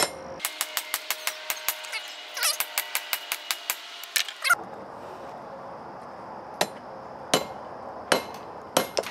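Hand hammer striking hot leaf-spring steel on an anvil. A quick run of blows, with the metal ringing between them, lasts about four seconds. After a short pause come four single blows, a little under a second apart.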